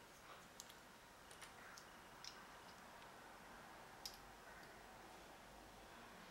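Near silence with a few faint, scattered clicks and ticks, the clearest about four seconds in, from hands handling heat-shrink tubing and wire leads.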